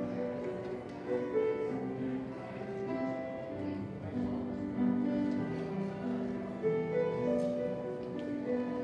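Slow instrumental music played on a keyboard instrument, a melody of held notes over sustained chords.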